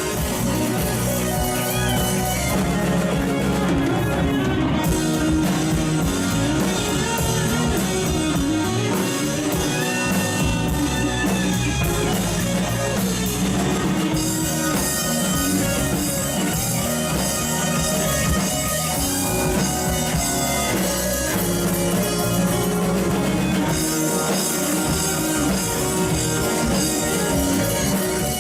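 Live rock band playing: electric guitar over bass and drum kit.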